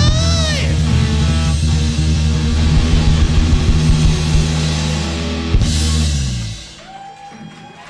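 Live rock band ending a song: the singer's held note slides down and stops about half a second in, then electric guitars, bass guitar and drums ring out a final held chord. A last drum and cymbal hit comes about five and a half seconds in, and the band stops about a second later, leaving only a faint held tone.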